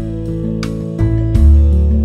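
Background music: a guitar-led instrumental with strummed chords over sustained low notes.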